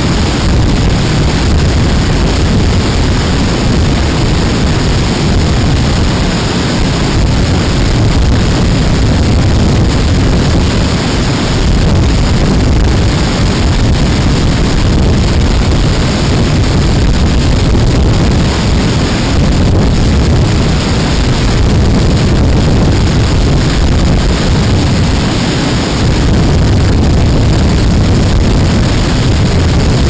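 Girlevik waterfall close by: the loud, steady rush of water cascading down the rocks, heavy in the low end.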